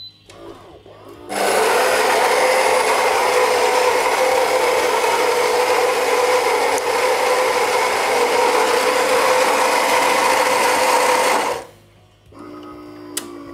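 Built-in coffee grinder of a Gaggia Magenta bean-to-cup espresso machine grinding beans for an espresso. It starts about a second in, runs steadily, relatively loud with a distinctive tone, and stops sharply about a second and a half before the end, leaving a quieter steady hum from the machine.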